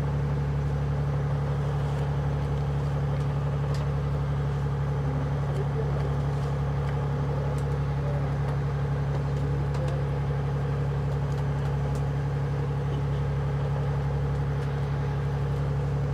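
Fishing boat's engine running steadily with an even low drone, and a few faint clicks over it.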